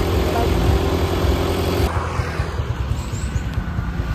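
Off-road 4x4 vehicle engine running with a rapid low pulsing. About two seconds in the sound cuts to a quieter stretch of the same low engine pulsing.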